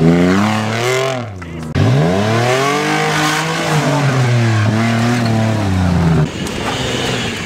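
Off-road 4x4 vehicle's engine revving hard, its pitch climbing and falling several times. About six seconds in the revs drop to a lower, rougher running note.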